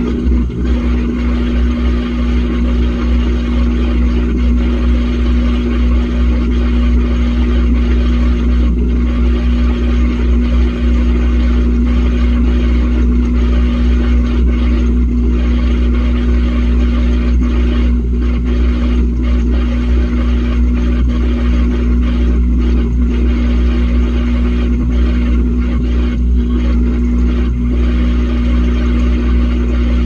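Washing machine running, heard from a camera inside the drum among the clothes: a loud, steady motor-and-drum hum with a constant low tone and a wash of noise above it.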